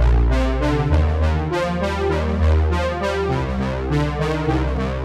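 Background music: held synthesizer-like chords over a deep sustained bass line, changing chord every second or so.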